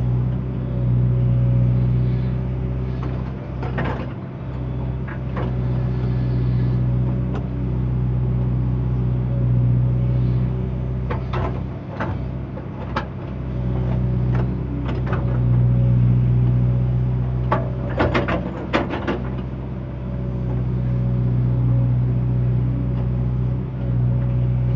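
JCB excavator's diesel engine running, its drone swelling and easing every few seconds as it works under changing load. Several sharp metallic clanks break through, most of them close together a little past the middle.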